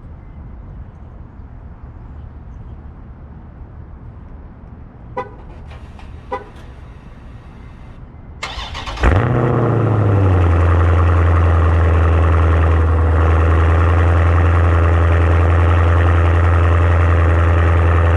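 Two short beeps, then about eight and a half seconds in the 2020 Dodge Challenger Scat Pack's 6.4-litre HEMI V8 cranks and fires on a cold start. It flares up briefly, then settles into a loud, steady, deep idle through an exhaust with the mid mufflers deleted and an H-pipe fitted.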